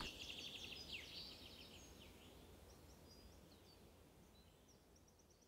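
Near silence, with faint, repeated high bird-like chirps and twitters in the background.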